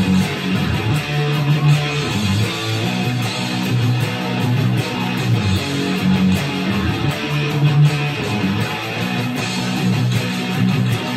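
Gibson Les Paul Standard '50s electric guitar played with heavy distortion: a strummed heavy-metal rhythm riff of chugging low notes that change every half second or so.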